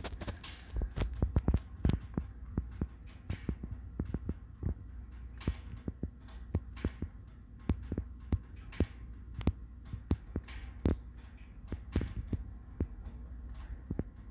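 Firewood burning in a wood stove, crackling and popping with irregular sharp cracks over a steady low hum.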